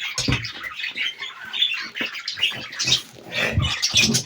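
Pet parrots chattering and squawking in short, irregular calls.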